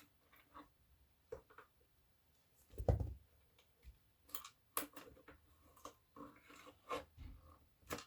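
Irregular knocks and clicks of tools and hands working on the subwoofer's assembly to free it, with one heavier knock about three seconds in.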